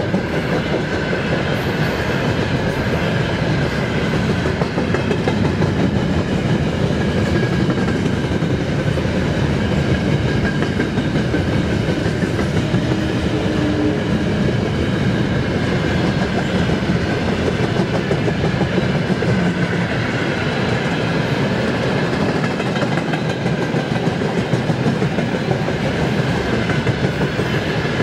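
Freight train's gondola wagons and tank cars rolling past: a steady, loud rumble of steel wheels on the rails that does not let up.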